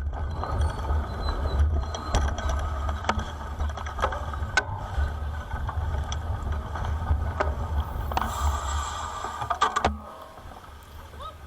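Wind rumbling on the microphone of a moving bicycle, with scattered sharp clicks and rattles; it drops quieter about ten seconds in.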